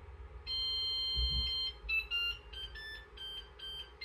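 MakerBot Sketch Sprint 3D printer playing its electronic chime: one long steady tone, then a quick run of short beeps at changing pitches, signalling that the firmware update has completed.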